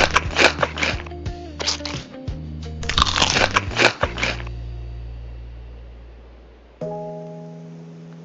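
Loud crunching of crunchy food being bitten and chewed, in quick irregular crackles, over background music with held bass and chord tones. The crunching stops about four and a half seconds in, leaving only the music, which moves to a new chord near the end.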